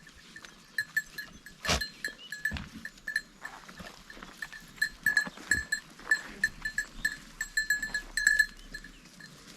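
Goats feeding at close range, with a small bell clinking in short irregular strokes as they move and eat, and a few dull knocks.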